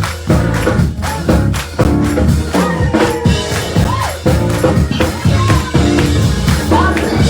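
Music with a steady drum-kit beat, tambourine and singing voices, in the style of church praise music.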